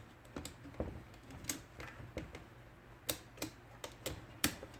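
Irregular sharp metallic clicks and taps from an IBM Selectric II typewriter's mechanism as its parts are handled and worked during repair, about ten in all.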